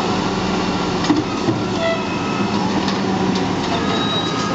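Garbage truck running with a steady engine and hydraulic hum, thin whining tones over it and a couple of short knocks about a second in.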